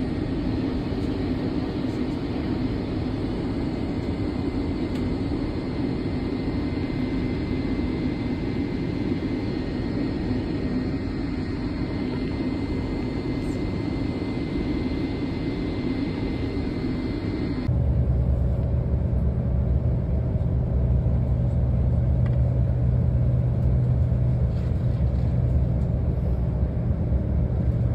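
Airliner cabin noise during descent: a steady rushing drone with a faint high, steady whine. About two-thirds of the way through it cuts abruptly to a road vehicle's interior on a highway, a louder, deeper steady rumble of engine and tyres.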